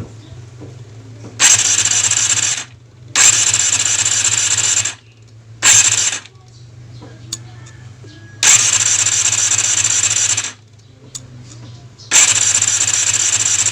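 Yamaha Zeal 250 four-cylinder engine being cranked over on its electric starter in five separate bursts, each about half a second to two seconds long. The spark plugs are out and a gauge is fitted to cylinder number 1: the cranking is for a compression test.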